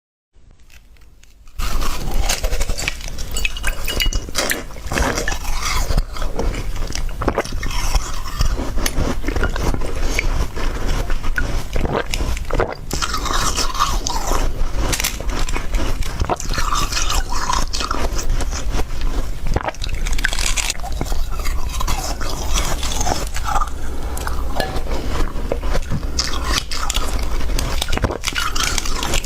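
Slushy ice from a frozen water bottle being bitten and chewed close to the microphone: continuous wet crunching and scraping that starts about a second and a half in.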